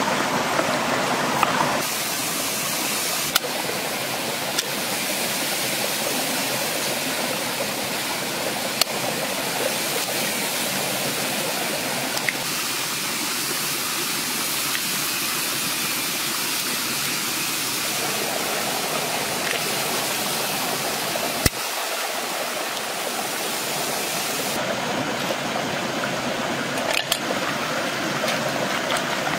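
Shallow stream running over rocks, a steady rush of water, with a few light clicks and one sharp click about two-thirds of the way through.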